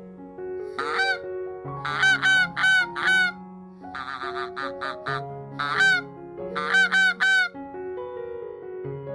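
Goose honking in short bursts of repeated calls, over soft piano background music.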